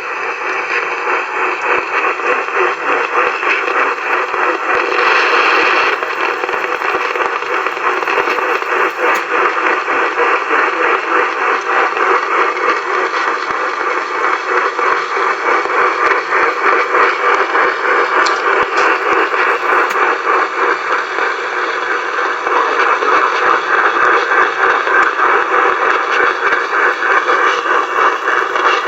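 Noisy AM radio reception: steady hiss and crackling static fill the signal, with the station's audio buried beneath it.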